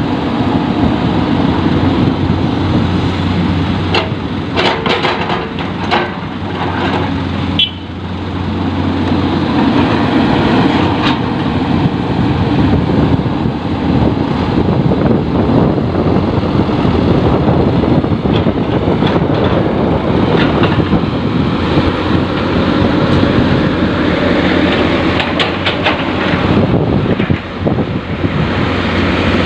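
Heavy diesel machinery running steadily with a low engine hum, from a Komatsu PC200 excavator loading a dump truck. Bursts of knocks and clatter come about four to eight seconds in and again near the end.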